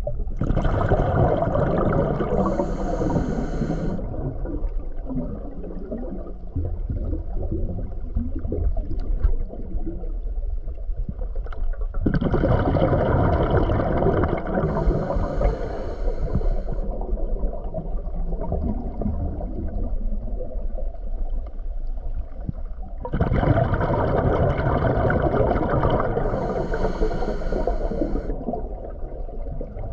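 Underwater sound: a steady low rumble of water on the camera, broken three times by a few seconds of whirring boat-motor noise with a thin whine over it.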